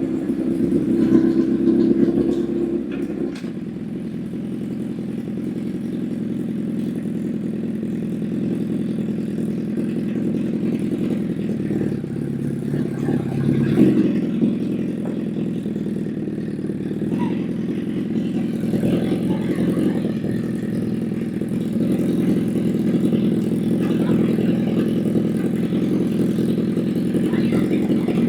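Honda CBR1000 motorcycle's inline-four engine running under way, its note dropping after about three seconds and rising again near the middle.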